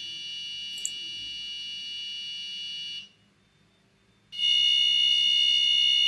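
Arduino-driven passive buzzer sounding a steady, buzzy tone from a pin switched on and off every few hundred microseconds. The tone stops about three seconds in and returns louder just over a second later, once the sketch with a 700-microsecond delay has uploaded.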